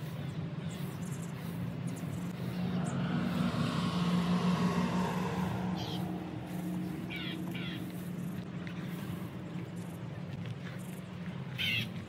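A motor vehicle passing: a low steady hum with a swell of road noise that rises to a peak about four seconds in, then fades as its pitch falls. A few short high-pitched chirps sound in the second half.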